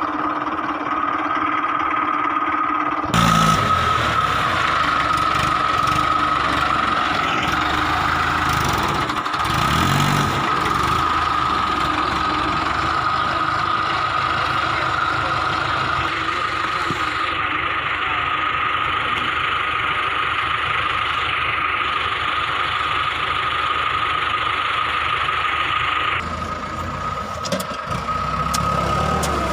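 Tractor diesel engine running, with a steady high whine. About three seconds in it gets suddenly louder and stays up until near the end, when it drops back.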